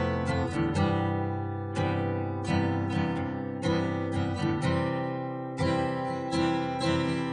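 Instrumental song music: an acoustic guitar strummed in a steady, regular rhythm, with no singing yet.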